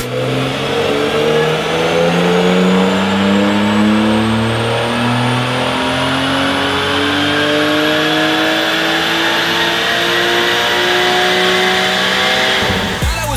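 Porsche 992 Carrera S twin-turbo 3.0-litre flat-six running through an Armytrix aftermarket exhaust at full throttle on a chassis dyno. The revs climb steadily in one long pull and cut off near the end.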